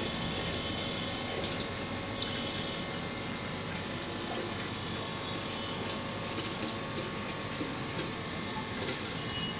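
Aquarium water circulating with a steady rushing noise and a faint, steady pump hum. A few faint ticks are heard here and there.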